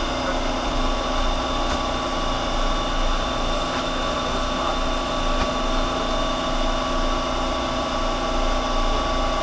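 Steady machine hum, several constant tones over a low rumble, even in level throughout.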